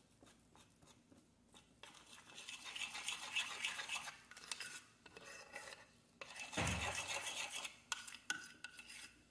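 Metal spoon stirring and scraping thick cheese-bread batter in a glass bowl, with small clinks against the glass, mostly after the first two seconds. One dull knock about two-thirds of the way through is the loudest sound.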